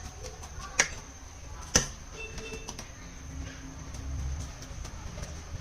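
Two sharp clicks about a second apart over a low steady hum, with a faint high chirp shortly after.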